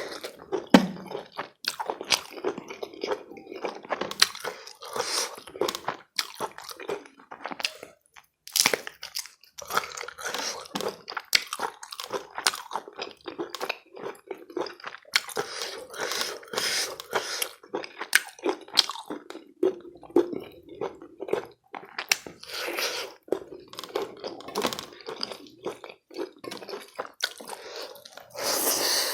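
A person eating a meal of chicken curry and rice close to the microphone: chewing and biting, with irregular wet smacks and crunches throughout.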